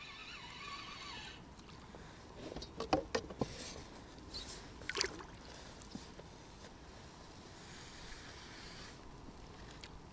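Water splashing as a small hooked bream is drawn through the surface and scooped into a landing net, with a few sharp splashes and knocks about three and five seconds in.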